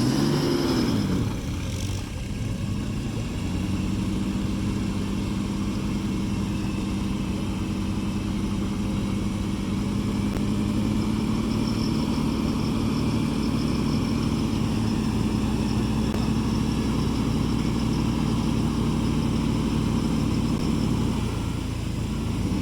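Off-road vehicle engine revving up and down about a second in, then pulling at a steady pitch under load. Near the end it eases off briefly and picks up again.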